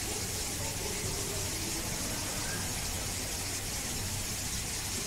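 Steady background hiss with a low hum underneath, unchanging throughout; no distinct events stand out.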